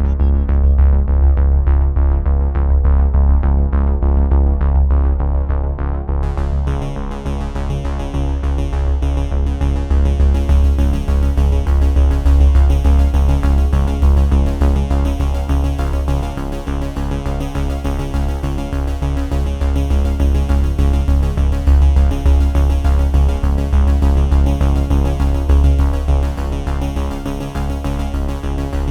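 Background music: electronic synthesizer music with a steady bass, growing fuller about six seconds in.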